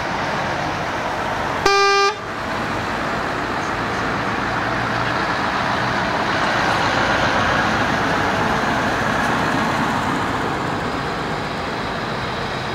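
Truck horn giving one short blast about two seconds in, a single steady note with strong overtones. Around it, heavy diesel trucks run steadily as they drive past, engines and tyres.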